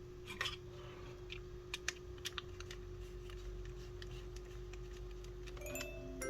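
A series of light, irregular clicks and taps over a steady low tone.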